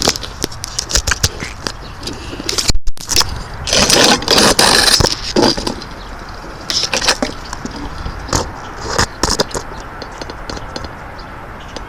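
Irregular rustling and scraping close to the microphone, with many sharp clicks and a louder stretch of rustle about four seconds in; the sound drops out completely for a moment near three seconds.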